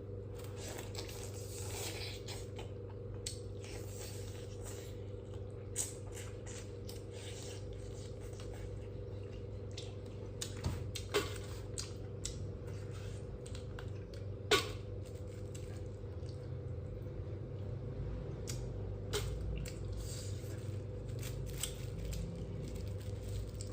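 A person eating by hand: quiet chewing and the handling of food and its wrapping, broken by a few sharp clicks and knocks, over a steady low hum.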